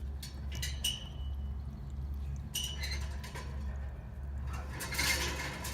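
HVAC blower wheel spinning down, giving irregular metallic clicks and brief high squeaks as the loose, cracking wheel rubs: the sign of a blower wheel starting to break. A steady low hum runs underneath.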